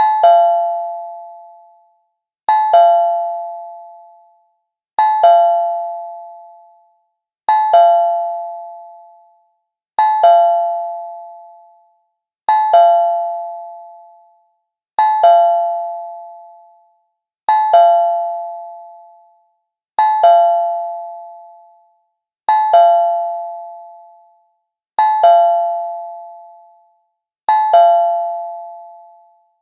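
Cartoon doorbell chime ringing over and over, about every two and a half seconds. Each ring is a quick double strike of a bright bell tone that fades out over about two seconds.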